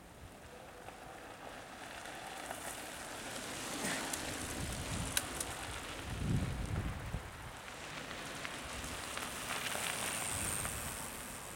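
Mountain bikes riding past on a sandy, gravelly forest trail, their knobby tyres crunching over grit and leaves. There are a couple of sharp clicks just past five seconds and a dull low bump around six seconds.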